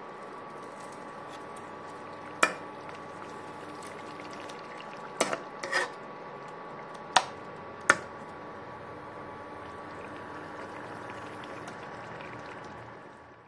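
Fish curry in a non-stick pan, simmering with a steady hiss. A metal spatula clicks sharply against the pan five times: once, then a close pair, then twice more.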